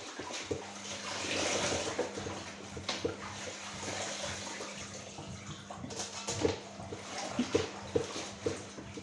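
Water running from a tap into a sink, with light knocks and clinks as things are handled under the stream.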